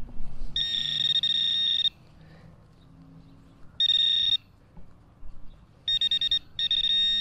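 A metal detector's high-pitched electronic tone, sounding in four bursts: a long one about half a second in, a short one near four seconds, then two close together near the end. It signals buried metal still in the hole.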